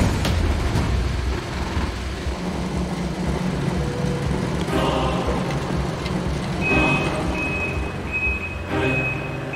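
A forklift's warning beeper sounding a run of high, evenly spaced beeps, starting about two-thirds of the way in, over steady background music.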